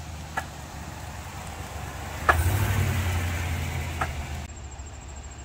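2021 Cadillac Escalade making a banging noise: three sharp bangs about two seconds apart, the middle one loudest, over a low vehicle hum. This is the sign of a fault whose cause the owner never learned.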